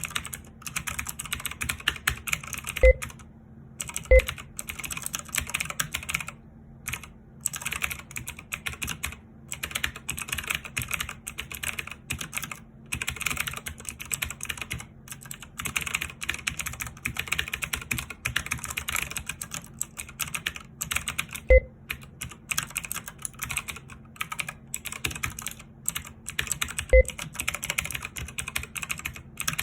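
Fast, continuous typing on a Logicool K835 mechanical keyboard, a rapid stream of key clicks with a few brief pauses. Four keystrokes stand out as louder knocks.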